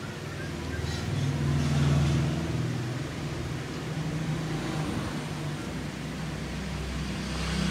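Background road traffic: a low vehicle engine hum that swells about a second in and eases off again.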